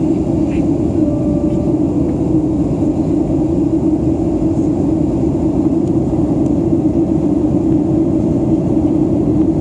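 Steady cabin noise of a Boeing 737 in its climb, a constant deep rush of engine and airflow heard from inside the passenger cabin.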